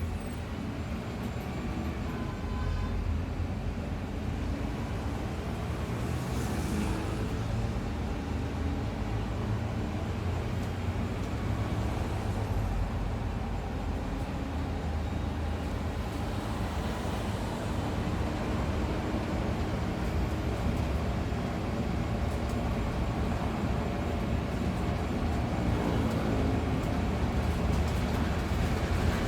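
Bus in motion heard from inside the passenger cabin: a steady low engine and road rumble with tyre noise.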